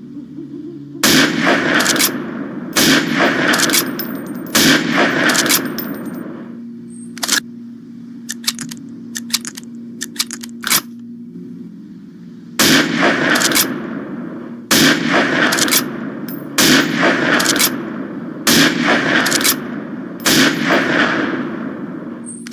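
Springfield M1903A4 .30-06 bolt-action rifle firing: three shots about two seconds apart, each followed by quick sharp clicks. A run of lighter metallic clicks follows, then five more shots at the same pace, over a steady low hum.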